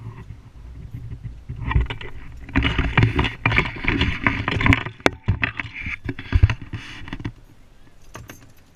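Handling noise from an action camera being picked up and moved: loud rubbing and scraping with many knocks and clicks, starting about a second and a half in and dying down near the end.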